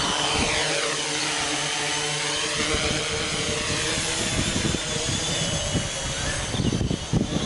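Homebuilt H-frame quadcopter's electric motors and propellers whining at high pitch, several tones sagging and then climbing again with the throttle as it lifts off and flies away.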